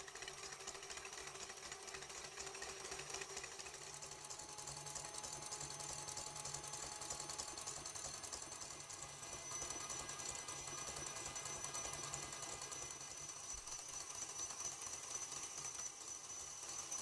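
KitchenAid Classic stand mixer running steadily, its wire whisk beating egg whites in a stainless steel bowl into meringue. A thin high whine joins the motor hum about halfway through.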